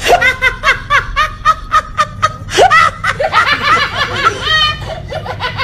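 A child's high-pitched laughter, dubbed in as a sound effect: a rapid string of short giggling bursts, about five a second.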